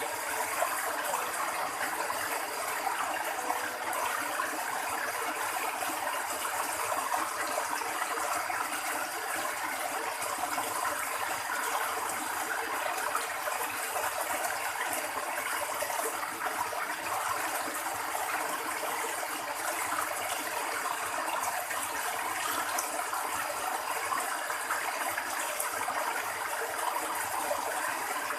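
Steady flow of water trickling and running in a small stream.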